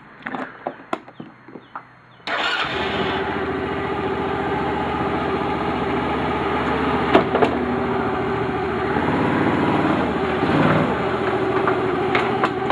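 Kazuma ATV engine: a few light clicks, then about two seconds in the engine starts and settles into a steady idle in neutral, with a couple of sharp clicks later on.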